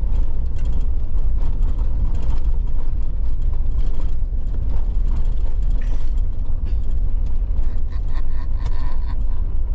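Inside a moving vehicle: a steady, loud low road rumble with a constant scatter of rattles, clicks and creaks from the cabin and body.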